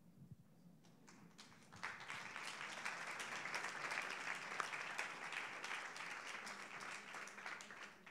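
Audience applauding: a few scattered claps, then full applause from about two seconds in that dies away near the end.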